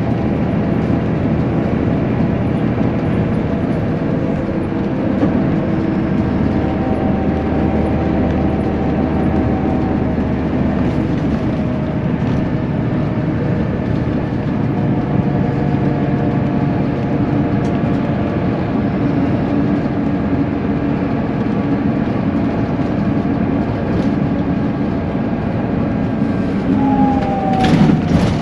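Steady running noise heard from inside a moving road vehicle, with faint engine tones; near the end a tone falls in pitch.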